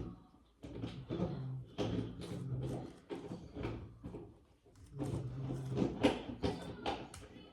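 Plastic Rubik's cube being turned fast during a speed solve: its layers clicking and rattling in quick, irregular bursts.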